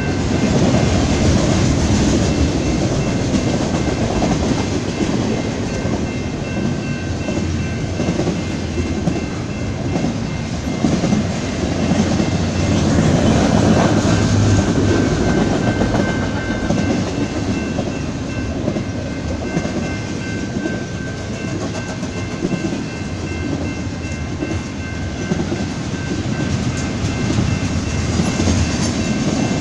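BNSF double-stack intermodal freight train rolling past: a steady rumble of wheels on rail and rattling well cars, with a thin, steady high ringing tone over it.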